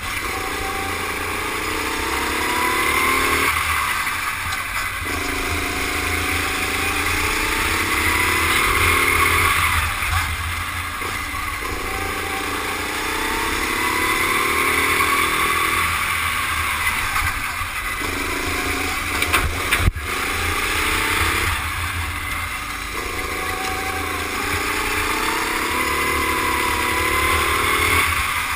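Rental go-kart engine heard onboard from the driver's helmet camera, rising in pitch as it accelerates along each straight and falling away when the driver lifts off for the corners, over and over. There is a single sharp knock about twenty seconds in.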